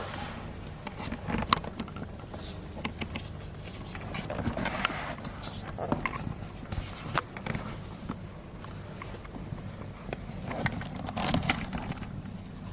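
Handling noise: irregular rustling and scattered sharp clicks and knocks over a faint low hum.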